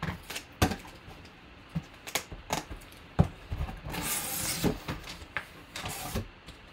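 Cardboard box being handled and opened: a series of separate knocks and taps on the box, then a rustling, scraping stretch as the flaps are pulled open, with a shorter rustle near the end.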